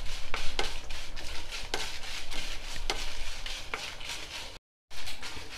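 Spatula stirring and scraping dried red chillies in a non-stick kadai as they dry-roast, its strokes repeating about twice a second. The sound cuts out for a moment near the end.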